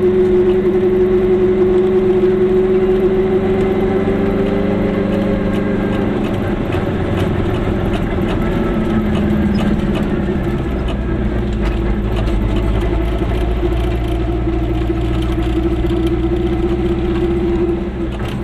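Goggomobil's small two-stroke twin engine running as the car drives along. Its note drops and changes about four to six seconds in, then runs steadily, with a deeper rumble coming in from about halfway.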